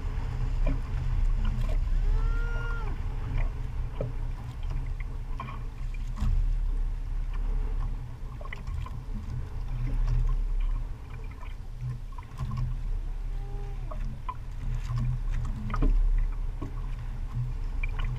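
Wind buffeting the microphone as a low, uneven rumble, with water noise around a small outrigger boat and scattered light knocks. Twice there is a short, faint squeak that rises and falls.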